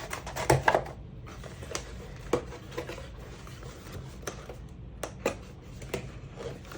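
Scattered light clicks and taps of small plastic accessories and cardboard packaging being handled and fitted back into a keyboard box.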